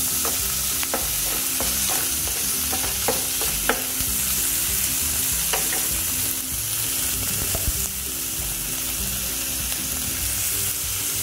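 Chopped potatoes, onions, tomatoes and green chillies sizzling in oil in a kadai while a spatula stirs them. The spatula clicks and scrapes against the pan, mostly in the first half.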